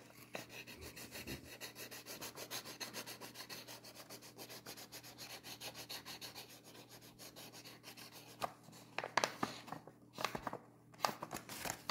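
Marker tip scribbling quickly back and forth on paper, a faint, even rubbing of about three or four strokes a second, colouring in a small area. A few sharper knocks near the end.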